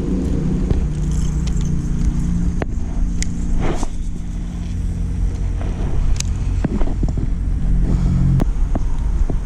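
A motor engine running steadily: a low rumble with a steady hum that drops away near the end, with scattered sharp clicks over it.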